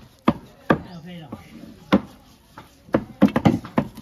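Knife chopping raw pork on a chopping board. There are a few separate chops in the first two seconds, then a quick run of chops near the end.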